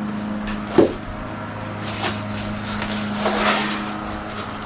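Cardboard and styrofoam packing being handled during unboxing: a sharp knock about a second in, a faint click near two seconds, then a brief rubbing scrape, over a steady low hum.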